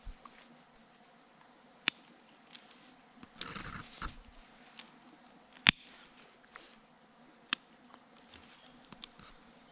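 Steady high-pitched insect chorus, with a few sharp clicks and a brief rustle about three and a half seconds in.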